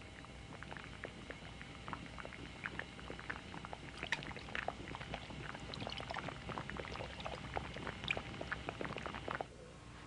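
Yashabushi (alder-cone) dye liquid bubbling and splashing in the pot: a dense, irregular patter of small pops. It cuts off abruptly near the end.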